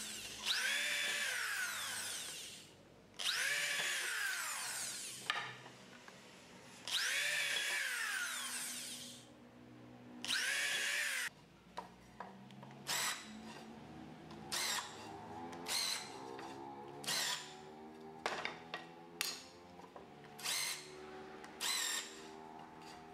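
Electric drill pre-drilling pilot holes in a pine batten. There are four runs of a couple of seconds each, every one rising in pitch as the drill spins up and falling as it winds down, then a string of short quick bursts about once a second.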